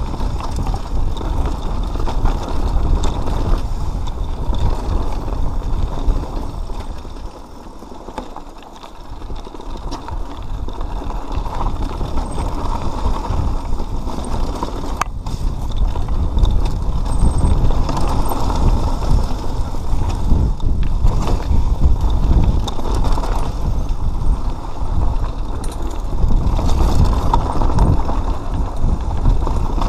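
Mountain bike riding over rocky, loose-stone singletrack: a steady rumble of tyres on dirt and gravel with the bike rattling and knocking over the bumps. It eases for a few seconds about eight seconds in, then picks up again.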